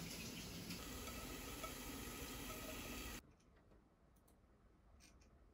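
Faint steady room hiss that cuts off suddenly about three seconds in, then near silence with a few faint clicks, from a computer mouse.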